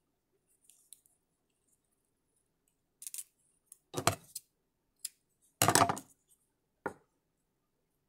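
Sewing supplies being handled on a stone countertop while a spool of black thread is fetched: about half a dozen short clicks and knocks, the loudest a little past the middle.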